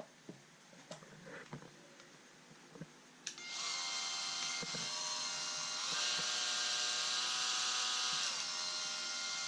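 Makita XMT03Z 18V cordless oscillating multi-tool switched on with a click about three seconds in, its motor and oscillating head running with a steady whine. The speed steps up slightly about six seconds in and drops back near the end. Before it starts there are a few quiet handling clicks.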